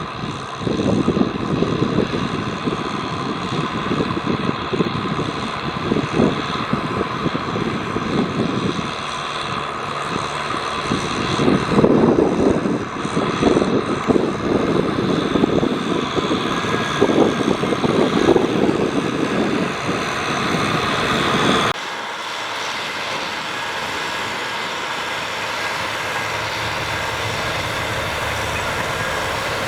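Kubota M6040SU tractor's diesel engine running while working a field, rough and uneven with surges in level. About two-thirds of the way through the sound switches abruptly to a steadier, even engine run.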